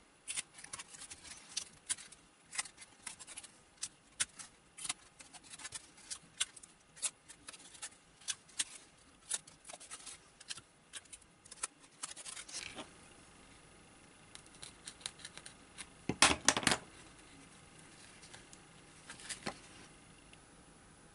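Hands handling and pressing on a white foam tailplane on a cutting mat: irregular small clicks, scratches and rubbing through the first twelve seconds or so, then quieter, with a louder scraping rustle about sixteen seconds in and a shorter one near nineteen seconds.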